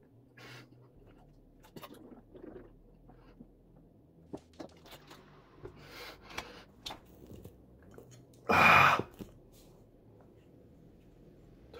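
A person chewing a mouthful of chewy canned silkworm pupae (beondegi), with soft wet chewing and small mouth clicks. One loud, short rush of breath comes about eight and a half seconds in.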